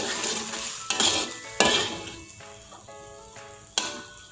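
Metal ladle scraping and clinking against an aluminium wok while stirring a liquid sweet-and-sour tomato sauce, in several uneven strokes, the loudest about a second and a half in. Background music plays underneath.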